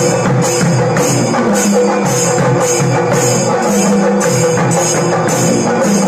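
Chenda melam: chenda drums beaten with sticks together with hand cymbals clashing about twice a second, a loud, steady, driving rhythm.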